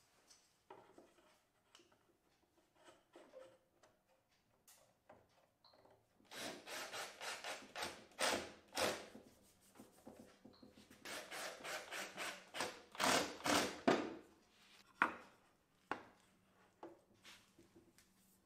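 Quick back-and-forth rubbing strokes on wood, about four a second, in two runs of roughly three seconds each, with a few light knocks and a sharp click between and after.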